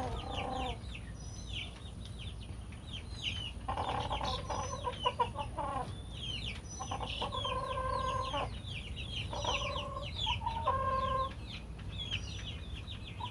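Rooster making a low, pulsing purr-like trill, the "snoring" sound of a contented chicken, in three bouts of a second or two each. Quick, high, falling chirps from other birds go on throughout, over a steady low hum.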